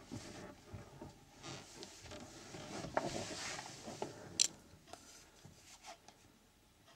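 Fabric rustling and camera handling noise as curtains brush past, with scattered small clicks and one sharp click about four and a half seconds in.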